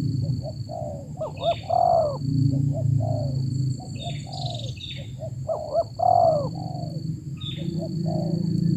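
Spotted doves cooing in repeated phrases, with louder coos about a second and a half in and again about six seconds in. A steady high insect drone and a few short bird chirps run alongside, over a low rumble.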